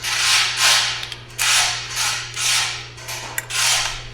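Hand ratchet wrench being swung back and forth to run down a 12 mm bolt, its pawl rattling in short strokes about once a second.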